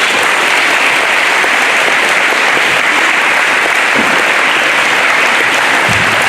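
Audience in a school assembly applauding loudly and steadily after a student's speech.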